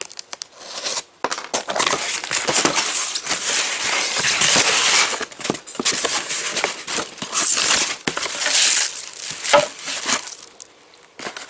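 Packaging crinkling and rustling as new headlight assemblies are unwrapped and lifted out of their box, with a few small knocks. It starts about a second in and dies away shortly before the end.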